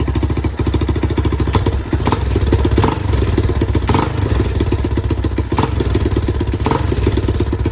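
Four-stroke dirt bike engine running at a fast idle, freshly started after its spark plug was cleaned with brake cleaner. Sharp pops are heard about once a second, in step with flames coming from the bike.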